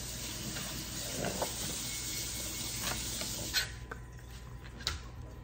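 A few light knocks of knife and utensils on the kitchen counter over a steady hiss, which cuts off about three and a half seconds in.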